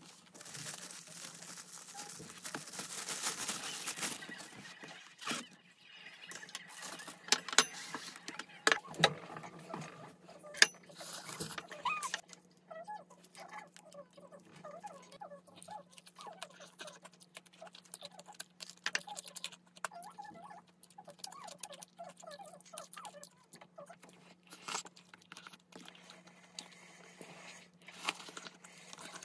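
Hands handling a paper takeout chicken box and plastic food containers: rustling for the first few seconds, then scattered light clicks and taps of packaging and food, over a steady low hum.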